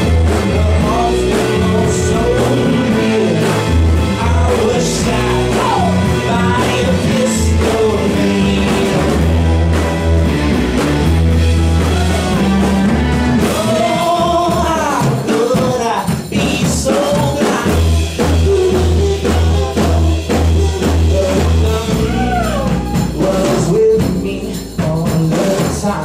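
Live rock band playing a song with a singer, bass and drums, heard through a phone from the back of a club crowd.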